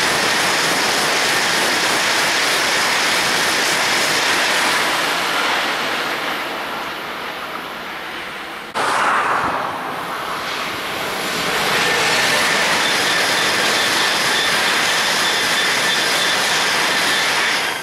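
Eurostar Class 373 high-speed trains passing at speed: a loud, steady rush of wheels on rail and air. The first pass fades over several seconds, the sound breaks off abruptly about nine seconds in, and a second pass swells up and stays loud to the end.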